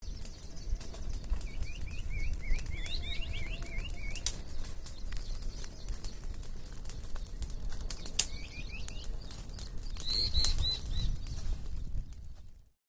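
Wood fire crackling with sharp pops over a low rumble, while a small bird sings two quick runs of rapid chirps and then a few higher notes. The sound cuts off suddenly just before the end.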